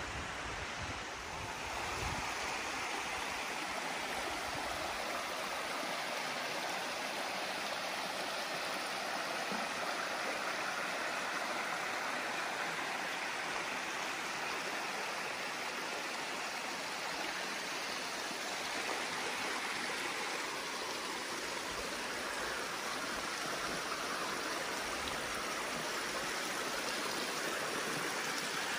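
Steady rush of a waterfall and the creek below it: a constant, even splashing hiss of falling and running water.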